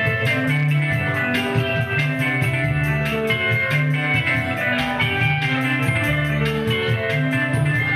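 Live band playing an instrumental passage: guitar lines over a moving bass line and a steady drum beat.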